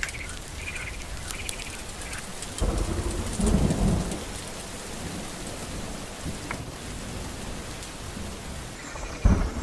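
Spring rain falling steadily, with a low rumble about three seconds in that lasts a second and a half, and a shorter one near the end.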